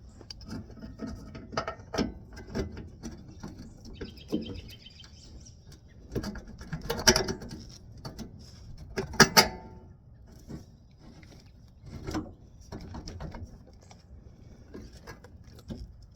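Irregular mechanical clicks, knocks and rattles of hands working a rear shock absorber into its mounts, twisting a stick in baling twine to compress it, with two louder metallic clatters near the middle.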